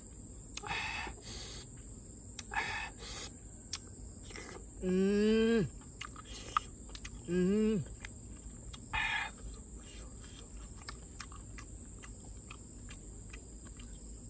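A man slurping and sucking the meat out of cooked snail shells in short bursts, three times, with scattered small clicks of the shells. Twice in the middle he makes a short sound of enjoyment that rises and then drops in pitch. A steady high insect drone runs underneath.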